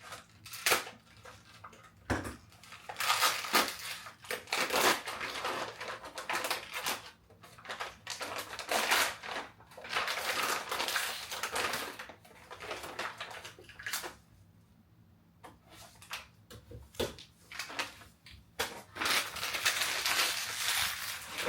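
Packaging crinkling and rustling in repeated bursts as items are unwrapped, with a lull of a few seconds past the middle.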